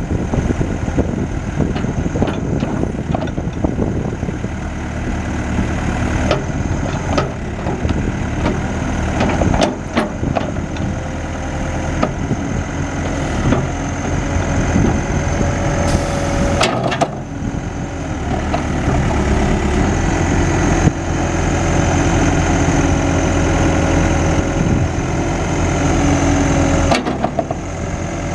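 Case 580 Super M Series 2 backhoe's diesel engine running steadily, with a few sharp knocks and clanks along the way and a brief dip and rise in engine sound about two-thirds of the way through.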